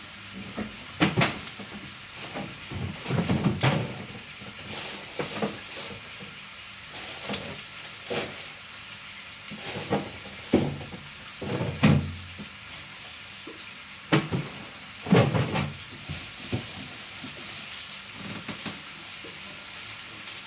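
Irregular knocks and clatter of kitchen utensils and cookware on a countertop, a dozen or so spread unevenly, over a steady faint sizzle from a pot of peppers cooking on the stove.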